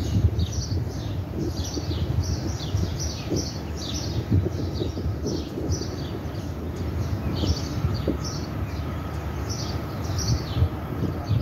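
Small birds chirping over and over, short high chirps that drop in pitch, several a second, over a low uneven rumble.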